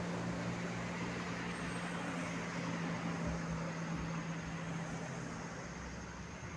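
Tour bus engine running with a steady low hum over road noise, slowly fading as it moves off.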